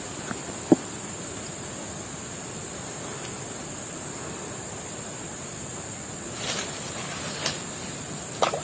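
Steady riverside ambience: insects droning on one high, unchanging pitch over an even hiss, with one sharp click about a second in and soft rustling of branches and leaves near the end.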